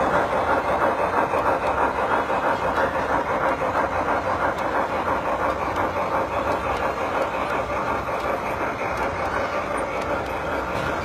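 Large-scale model train cars rolling past on the track: a steady rolling rumble with fast wheel clicking that eases off a little as the train goes by.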